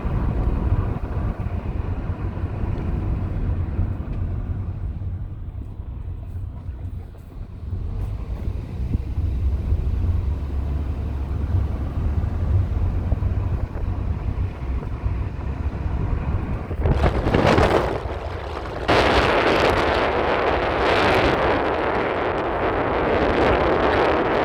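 Steady low road rumble of a car being driven, heard from inside. About seventeen seconds in, a loud rushing noise comes in, first briefly and then steadily until the end.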